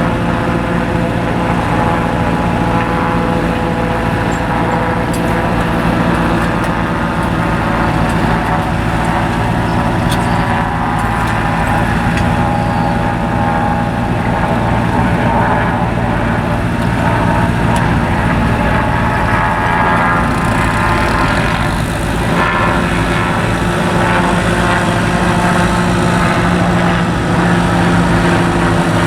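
Tractor engine running steadily, a low even drone with no change in speed.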